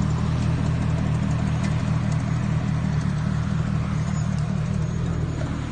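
Corvette-powered off-road buggy's engine running steadily with a low, even drone, no revving.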